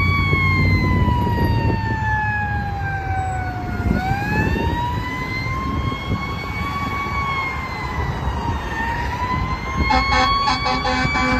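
Fire engine's siren in a slow wail, falling in pitch for about four seconds and then rising again, over the rumble of traffic. About ten seconds in, a lower, steady horn blast with rapid pulsing joins the siren as the engine nears.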